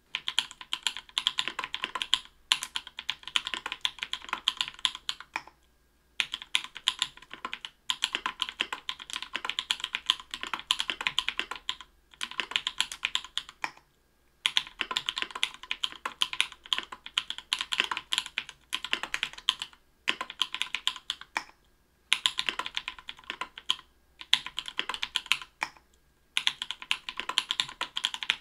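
Typing on a mechanical keyboard with lubed Everglide Bamboo Leaf Green 62g tactile switches, in an Octagon v3 with an aluminium plate and Cherry-profile PBT keycaps. Rapid keystrokes come in runs of a few seconds with brief pauses between them.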